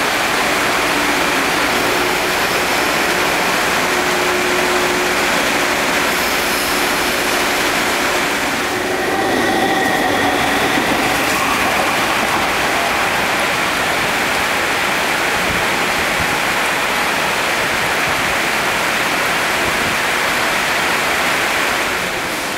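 MTR East Rail Line SP1900 electric multiple unit running along the track in heavy rain. Its running noise mixes with a steady rush of rain and spray, and a brief higher whine comes about nine seconds in.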